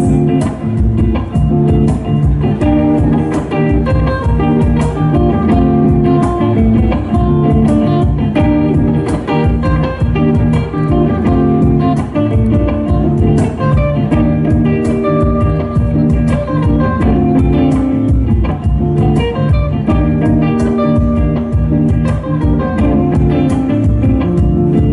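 Live band playing an instrumental, guitar-led passage over a steady drum beat, with no singing.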